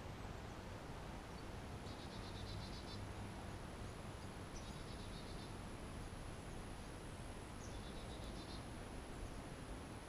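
Three short, high trills of rapidly repeated notes, about three seconds apart, from a small animal calling, over faint steady outdoor background hiss.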